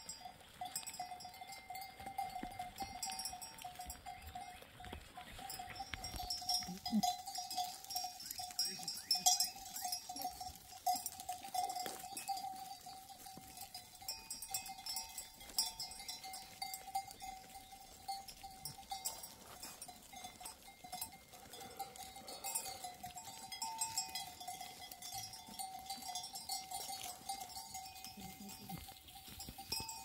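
Bells on a grazing flock of goats and sheep, ringing and clanking without pause, with a steady ringing note over many small clinks.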